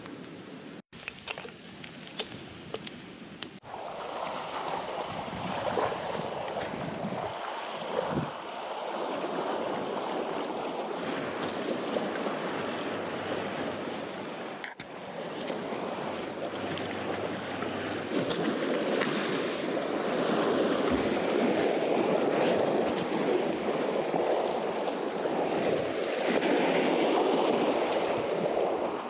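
Sea waves washing and surging against a rocky shore, a continuous rushing that rises and falls. It is quieter with a few scattered clicks at first, and grows louder from about four seconds in and again in the second half.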